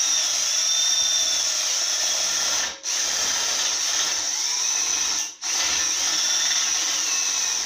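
Cordless drill-driver running under load, turning a threaded rod through welded nuts with a socket extension. Its steady whine stops twice for a moment, about three seconds and five and a half seconds in, each time starting again.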